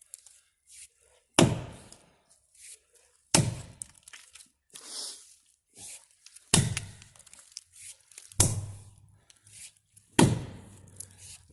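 Seven Pines Forge American felling axe chopping into the trunk of a dead ash tree: five heavy blows, one about every two seconds.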